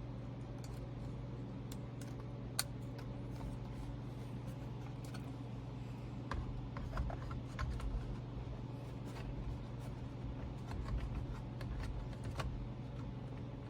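Scattered small plastic clicks and light handling noises as the steering wheel airbag module's connectors are clipped in and the module is fitted, over a steady low hum.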